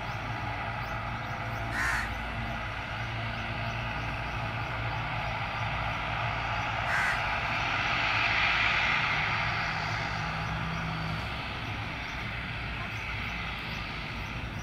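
ATR 42-500's twin Pratt & Whitney Canada PW127 turboprop engines running at low power as the airliner turns on the runway: a steady propeller drone with a hiss that swells about eight seconds in. Two brief sharp sounds cut in, about two and seven seconds in.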